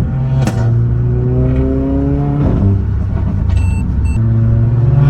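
Mercedes-AMG A45's turbocharged four-cylinder engine and exhaust pulling under acceleration: the note climbs, then drops at an upshift about two and a half seconds in, with a sharp exhaust crack near the start and another at the shift. Two short high electronic beeps sound about three and a half and four seconds in, and the engine note then climbs again.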